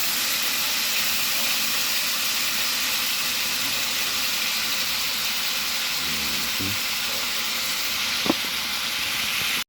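Beef sizzling steadily as it browns in a pot for stew, with one short tap about eight seconds in.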